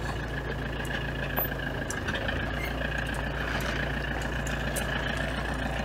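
Diesel engine of an Iveco Daily 4x4 camper van running steadily, an even hum with no change in pitch.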